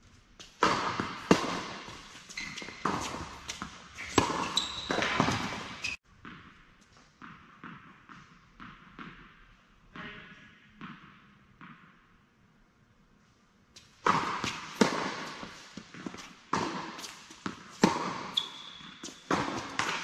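Tennis balls being struck by racquets and bouncing on an indoor hard court, sharp pops with a hall echo. Two busy stretches of rallying are separated by a quieter middle stretch of fainter hits.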